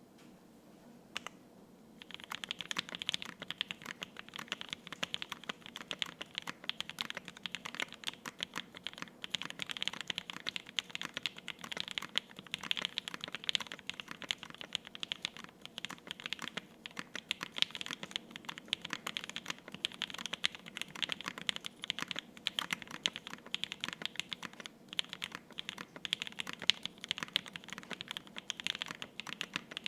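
Continuous fast typing on a KFE CE top-mount mechanical keyboard, built with lubed and filmed Lavender linear switches on a polycarbonate plate and GMK keycaps: dense keystroke clacks. A single keystroke comes about a second in, and steady typing starts about two seconds in.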